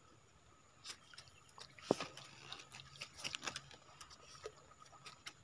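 Faint, scattered clicks and crackles from a lift net and a bamboo-framed scoop net being handled to take out a fish, the sharpest click about two seconds in and a few more close together a little later.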